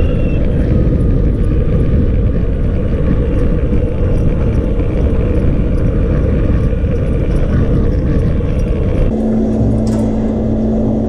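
Steady rumble of a Boosted Board electric skateboard's wheels rolling fast over asphalt. About nine seconds in it gives way abruptly to a steady low hum.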